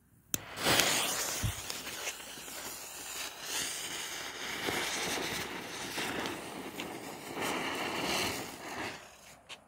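Ringelkringel youth ground firework burning, a dense hiss that rises and falls for about eight seconds, with a few sharp cracks in it. It starts with a click just after the start and dies away near the end.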